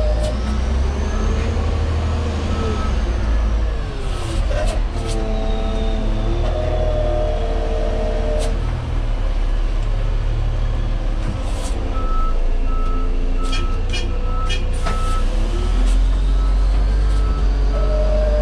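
LGMG CMT96 dump truck's diesel engine running and revving up and down during a slow reversing manoeuvre, with its reversing alarm beeping at an even pace, clearest in the second half. A few short sharp clicks come through, around four to five seconds in and again near the end.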